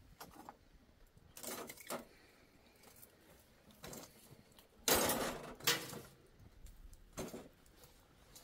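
Metal tongs clinking and scraping against a charcoal grill while flatbread is turned on the coals: a handful of separate short clatters, the loudest about five seconds in.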